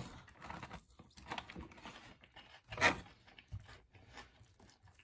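A person chewing and crunching food close to the microphone, a string of irregular crunches with a louder bite about three seconds in.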